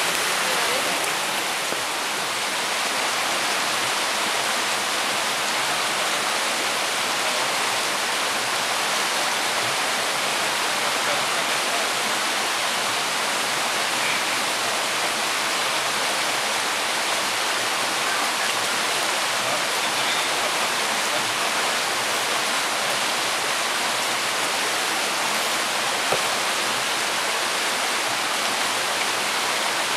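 A fast-flowing river running over small rapids, heard as a loud, steady, even rush of water.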